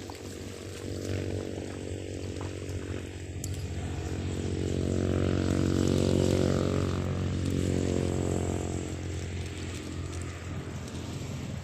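A small engine passes by, running at a steady pitch, growing louder to a peak about halfway through and then fading away.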